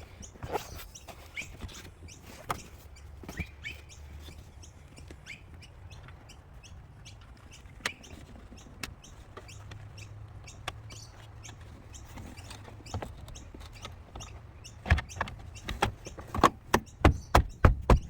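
Car interior trim being knocked into place by hand: scattered small clicks and taps, then from about fifteen seconds in a run of sharp, regular knocks, about two a second, growing louder as the last panel clips home.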